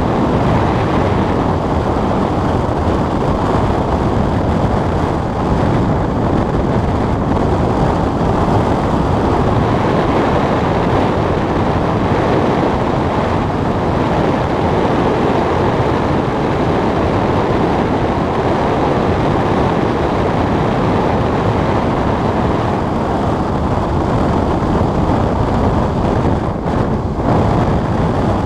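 Steady rush of air over a glider's canopy in flight, heard inside the cockpit, with no engine.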